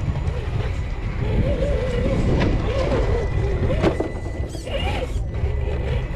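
Electric motor and gearbox of an RC Ford Bronco scale crawler whining, the pitch rising and falling with the throttle as it crawls over metal ramps. There are a couple of sharp knocks from the tyres on the metal plates, one about two and a half seconds in and one about four seconds in.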